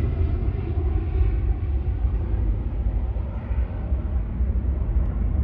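Jet airliner's engines running at high power, a steady roar with deep rumble that slowly grows duller as the aircraft moves away.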